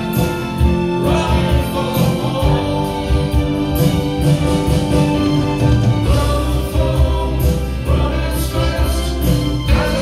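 A solo singer singing into a microphone while strumming an acoustic guitar: a live song, voice and guitar together.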